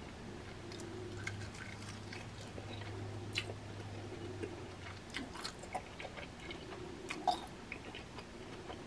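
Faint chewing and crunching of a crispy soy garlic Korean fried chicken wing, heard as scattered small clicks and crackles.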